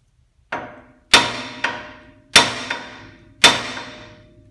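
A 4-pound hammer strikes steel four times, about a second apart, the first blow lighter, each leaving a metallic ring. Most blows are followed by a small rebound tap. It is hammering on the steering knuckle with a pry bar levered in, to shock the outer tie rod end's tapered stud loose.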